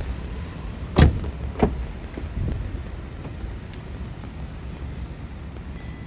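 A Skoda Fabia car door shutting with a solid thud about a second in, then a second, sharper knock and a few lighter clicks of door handles and latches.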